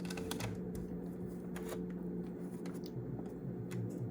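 Light clicks and rustles of hands working cookie dough on a pan, scattered irregularly over a steady low hum.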